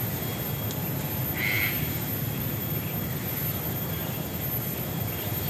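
A bird gives one short, harsh call about a second and a half in, over steady low background noise.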